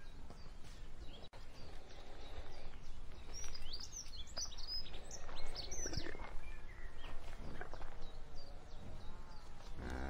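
Cows grazing: crackly tearing and chewing of grass, over a steady low outdoor background, with birds chirping several times in the middle.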